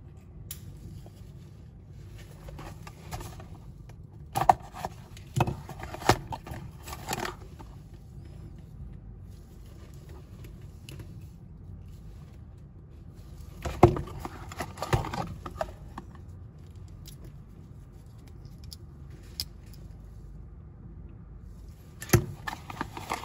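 Handling noise: scattered sharp clicks, knocks and rustles as cardboard boxes and pocketknives are handled and set down on a tabletop. It comes in three bursts, with a low steady hum between.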